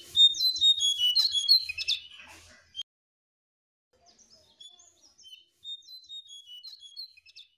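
Jongkangan songbird singing: a fast run of high chirping notes for nearly three seconds. After a short pause, a fainter string of short, high notes follows.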